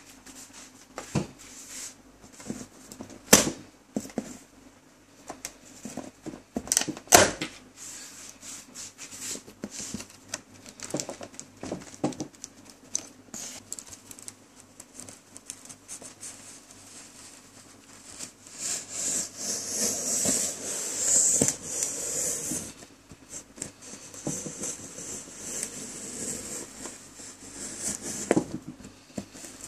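Unboxing sounds: a knife cutting open the air conditioner's box, with a few sharp knocks and clicks as it is handled, then several seconds of scratchy rasping of cutting and packaging about two-thirds of the way through.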